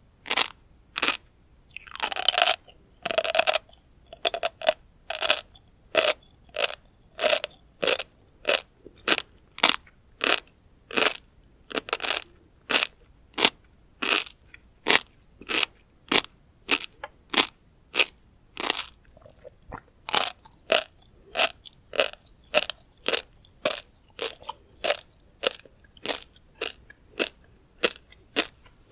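Close-miked chewing of tobiko flying-fish roe: the small eggs crunch and pop in the mouth in a steady rhythm of about two crunches a second, with a longer, denser crunch about two seconds in.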